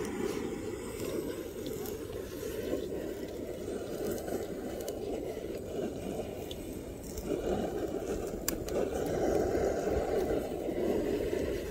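Handheld butane torch blowing a steady flame onto a grill grate, louder from about seven seconds in, with one sharp click about eight and a half seconds in.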